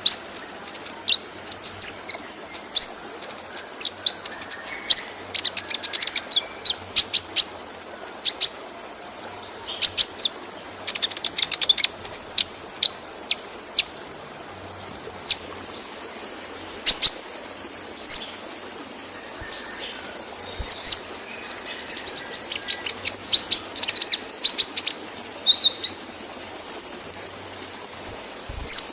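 Kolibri ninja, a sunbird, singing: many short, high, thin chirps and quick trills in bursts, over the steady rush of a waterfall.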